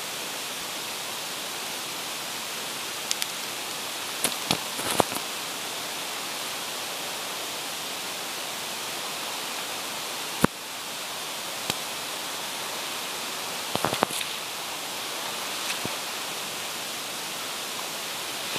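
Steady rushing of a shallow river running low over rocky rapids, with a few short knocks and clicks scattered through, the sharpest about ten and a half seconds in.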